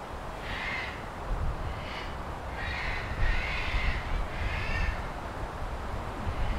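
Crows cawing: a run of about six short, harsh caws in quick succession.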